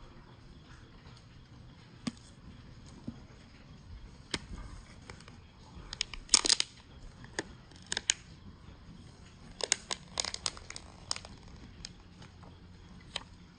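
Packaging being handled and opened: scattered sharp clicks and taps with light crinkling and tearing, loudest in a short burst about six seconds in.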